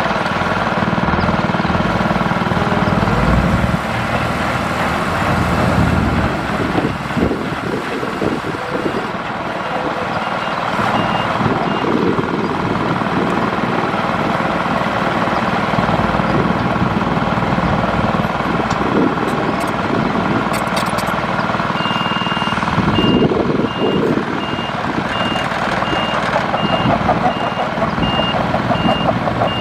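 Heavy earth-moving machinery running, its engine rumbling steadily. A reversing alarm beeps at an even pace, faintly near the middle and then clearly through the last third.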